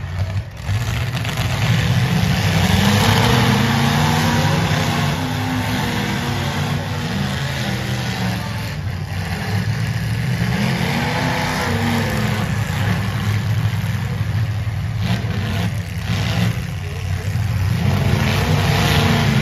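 Demolition derby car engines running loudly, revving up and dropping back several times over a steady rumble.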